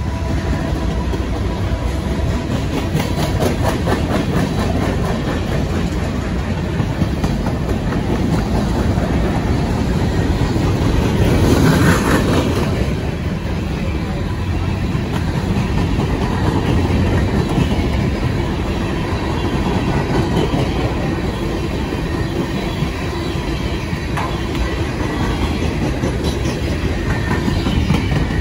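Freight cars of a CSX train rolling past: tank cars and open-top cars, their steel wheels rumbling and clacking over the rail joints. There is a louder stretch about twelve seconds in.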